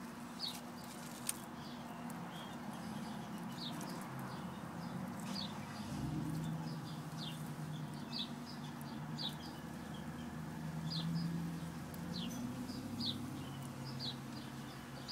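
A bird chirping over and over, short high falling chirps about once a second, with a low steady hum coming in about six seconds in. Now and then a faint crisp click as a Russian tortoise bites into leafy weeds.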